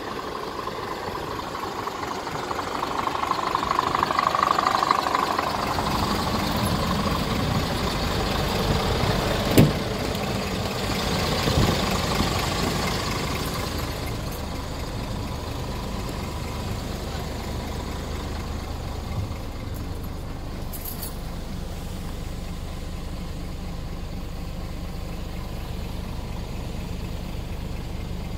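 Scania R450's 13-litre straight-six diesel idling steadily, with a single sharp thump about ten seconds in and a lighter knock about two seconds later.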